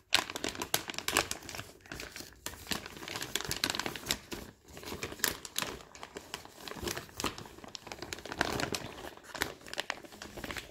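Plastic mailing bag crinkling and rustling as hands pull it open and rummage inside, a dense run of sharp crackles.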